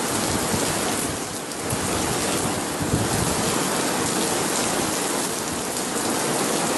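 Heavy downpour on a street, with a steady hiss of rain striking the ground and standing water.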